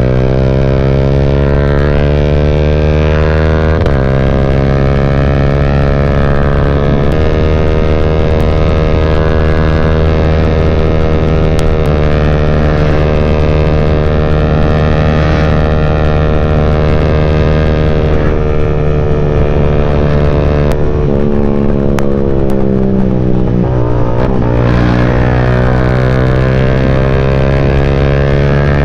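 Yamaha Y15ZR's single-cylinder four-stroke engine through a CJ Ipoh aftermarket exhaust, heard while riding: steady cruising with several gear changes, the pitch stepping abruptly at each shift, and a brief dip and rise in revs about 23 seconds in.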